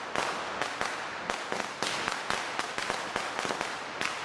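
Firecrackers going off in a rapid, irregular string of sharp bangs, several a second.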